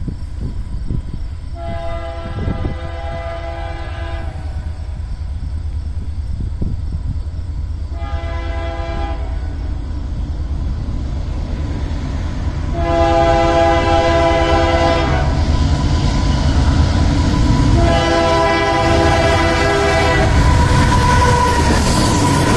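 Train locomotive's multi-note air horn sounding four blasts: long, short, long, long. A steady low rumble of the running train goes on under them and grows louder about halfway through as it comes closer.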